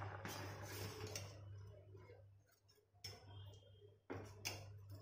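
Steel spoon stirring a thick milk pudding in a stainless steel saucepan, clinking and scraping against the pan in scattered taps, with a brief lull about halfway through. A faint low hum runs underneath.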